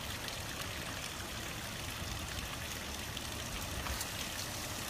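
Water gushing steadily from the open drain valves at the base of full plastic rainwater tanks as they are emptied.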